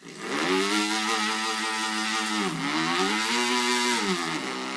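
A man's vocal imitation of a gas string trimmer (weed whacker) running: a steady engine-like drone that drops in pitch twice and climbs back up, like the throttle let off and opened again.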